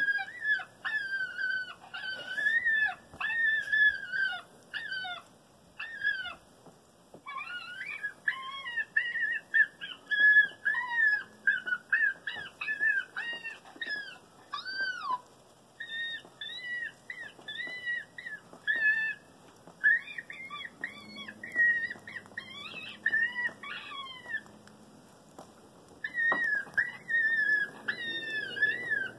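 FoxPro Patriot electronic predator caller playing a recorded grieving fox call through its speaker: runs of short, high whining cries, several a second, broken by brief pauses.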